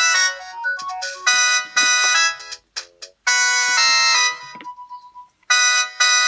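Samsung 1088 mobile phone ringtone playing: a synthesized electronic melody of short, bright chord stabs with gaps between them. A longer held chord comes about three seconds in, then a faint steady tone, then another stab near the end.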